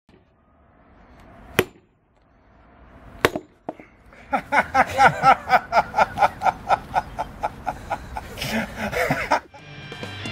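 Two sharp strikes, each building out of a swelling rush, from a sledgehammer hitting a steel splitting wedge in a log. These are followed by a long run of laughter in quick bursts, about five a second, that stops suddenly near the end.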